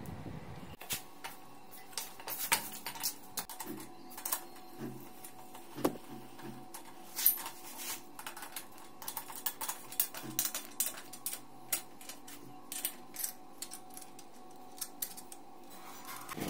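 Irregular light metallic clicks and taps from hands fitting small motorcycle parts, such as the front drum brake arm and cable, over a faint steady hum.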